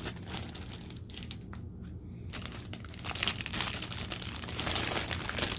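Shiny foil envelope crinkling as it is handled and turned over, with recipe cards sliding out of it. The crinkling is lighter early on and grows denser and louder in the second half.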